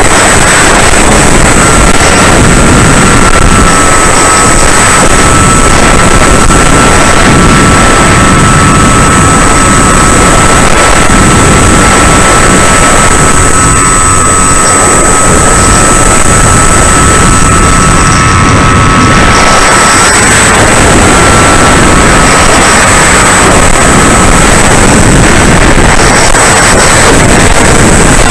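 Bix 3 RC plane's brushless electric motor whining at a steady pitch in flight, under loud, constant wind rush. About twenty seconds in the whine cuts out briefly, then returns fainter and fades out a few seconds later.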